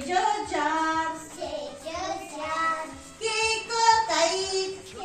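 A child's voice singing a phonics chant in short phrases of about a second each, with faint light musical backing.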